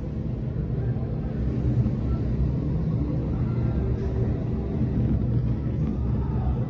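Steady low rumble of vehicle engines on the street, muffled through window glass.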